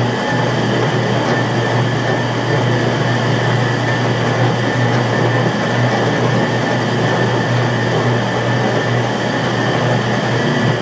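Commercial dough mixer running steadily while it kneads a large batch of bread dough in its steel bowl: a constant low motor hum with a faint steady high whine over the churning.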